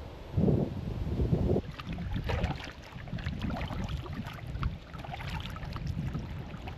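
Kayak paddle dipping and splashing in lake water in irregular strokes, with wind rumbling on the microphone, loudest in the first second or so.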